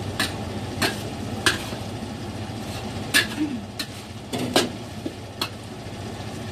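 Metal cooking utensil clinking and scraping against a wok in irregular sharp knocks, about one every half second to a second, over a steady low hum.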